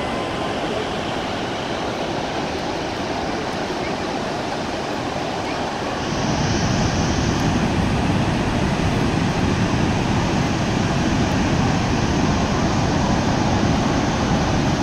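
Niagara Falls: the steady rushing noise of falling water, growing louder and deeper about six seconds in.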